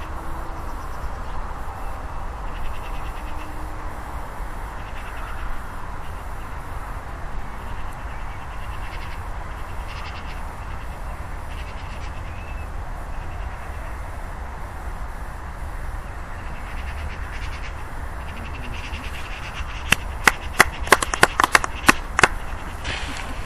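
Wind rumbling on the microphone over a steady outdoor hiss. About twenty seconds in, a quick run of sharp crunching clicks: footsteps on gravel.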